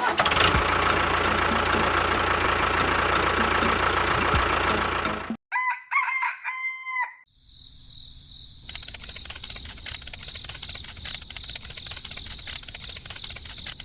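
A loud, even rushing noise for about five seconds that cuts off suddenly, then a rooster crowing once. After that comes a fainter, steady rapid ticking with a high, steady whine.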